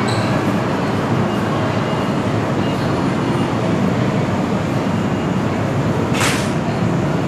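Steady rumble and hiss of an electric train standing at the station platform, with one short, sharp hiss of air about six seconds in.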